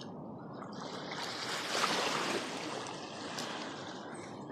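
River water rushing and lapping, swelling louder for a second or so near the middle.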